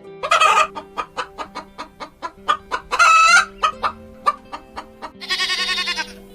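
Chicken clucking in a quick run of short clucks, with loud squawking calls about half a second and three seconds in and a longer wavering call about five seconds in. Soft background music with steady held notes plays underneath.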